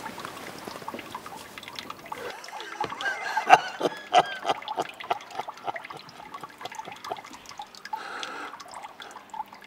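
Water dripping and trickling: irregular drops and small splashes, after a steady hiss that fades out about two seconds in.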